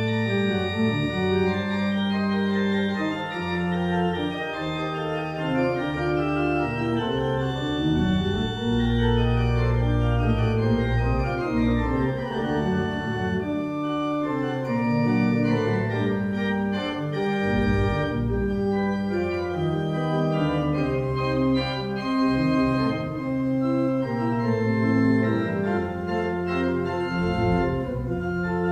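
Church pipe organ playing: held chords over deep bass notes, the harmony changing every second or so.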